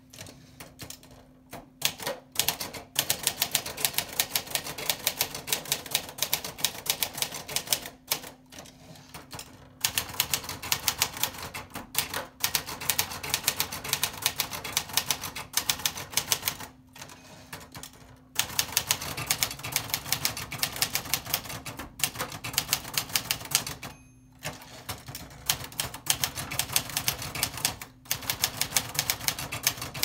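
Underwood 378 manual portable typewriter, with Olivetti-built mechanism and all-plastic body, being typed on. Fast runs of key and typebar clacks are broken by short pauses every few seconds, after a few separate clicks in the first couple of seconds.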